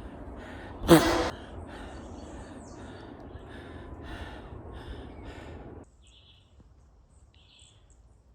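Heavy panting from a person climbing a steep trail, in quick breaths about twice a second, with one loud voiced gasp about a second in. It stops abruptly near 6 s, leaving a quiet forest background with a couple of faint high chirps from birds or insects.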